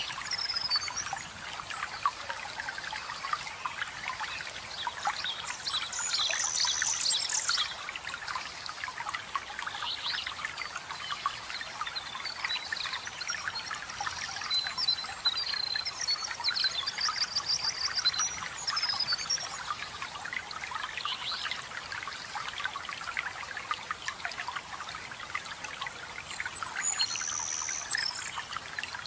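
Forest waterfall splashing and trickling steadily, with songbirds singing short high trilled phrases now and then over the water.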